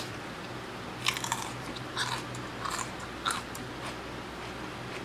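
A raw habanero pepper being bitten and chewed: crisp, wet crunches at irregular intervals, about five of them in the first three and a half seconds, then fainter chewing.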